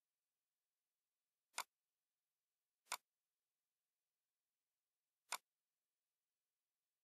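Three short, sharp computer-mouse clicks, the first two about a second apart and the third over two seconds later, in near silence.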